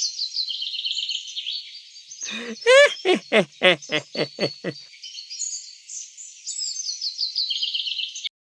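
Birds chirping continuously in quick, high twittering phrases. About two seconds in, a run of about seven rapid, lower calls, each falling in pitch, lasts some two and a half seconds. The sound cuts off abruptly near the end.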